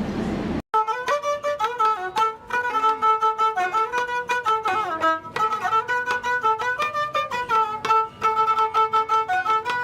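Instrumental music: a melody line that slides between notes over quick, repeated plucked or struck notes, in the style of Moroccan street music. It begins abruptly about half a second in, cutting off a brief rumbling noise.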